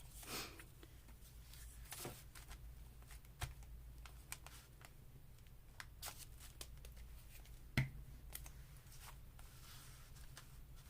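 Soft rustling and handling of paper pieces, with scattered small taps; the sharpest tap comes near the end.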